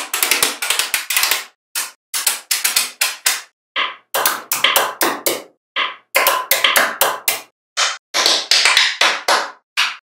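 Small magnetic balls clicking and clacking against each other as they snap together, in runs of rapid clicks broken by brief silences.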